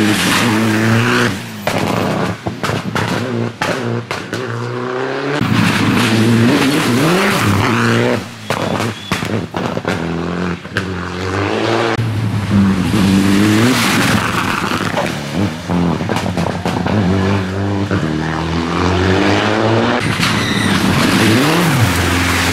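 Citroën DS3 rally cars racing past on a wet tarmac stage, one after another: engines revving hard, the pitch climbing and falling through gear changes and braking, with scattered sharp pops and the hiss of tyres on the wet road. The sound changes abruptly about five seconds in and again near the end as one car gives way to the next.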